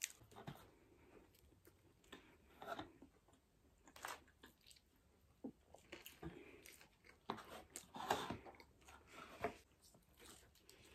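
A person quietly chewing and biting food, with short mouth clicks and smacks coming irregularly.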